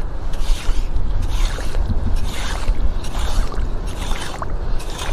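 Waterlogged beach sand being worked by hand and with a small metal hand rake: wet swishing scrapes about once a second, over a steady low wind rumble on the microphone.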